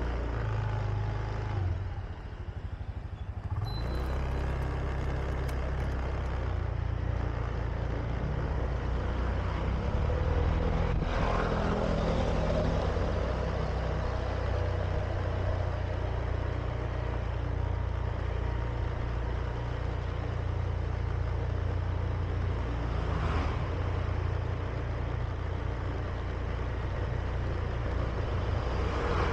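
Honda Beat scooter's single-cylinder four-stroke engine running steadily while riding along a street, with tyre and road noise. It eases off for a moment about two seconds in.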